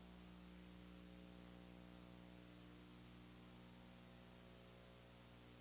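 Near silence: a faint steady hum with light hiss.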